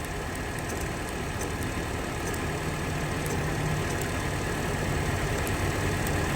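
Air-conditioning compressor running with a steady mechanical hum, driven through a contactor whose pitted, corroded contact points have just started making contact again. A low hum grows stronger about two and a half seconds in.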